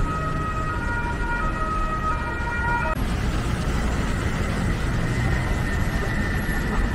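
Road traffic noise rising from the street below, with an electronic tone over it. The tone changes pitch in steps for about three seconds, then holds on one high note.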